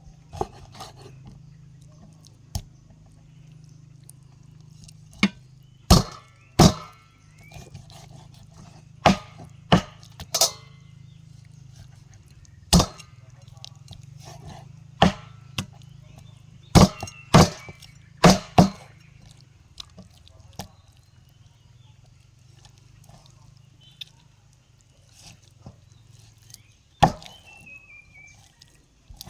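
Knife chopping on a wooden cutting board: irregular sharp chops, some in quick pairs, coming in two busy runs with pauses between, over a faint steady low hum.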